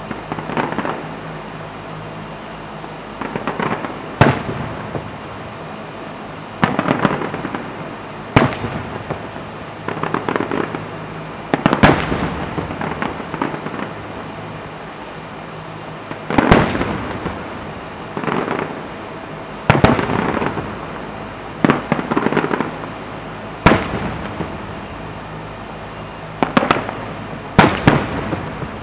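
Aerial firework shells bursting in a display: about nine sharp bangs every two to four seconds. Most are followed by a second or so of crackling, and more clusters of crackling pops come in between.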